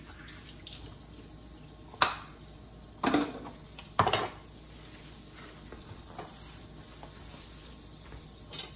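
Three sharp clanks about a second apart from cookware and utensils being handled on a kitchen counter, followed by a few faint knocks and a kitchen tap running near the end.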